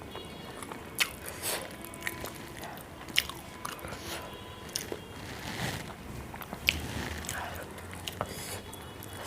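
Close-miked eating sounds: a person chewing a mouthful of rice and curry, with wet mouth smacks and several sharp crisp bites.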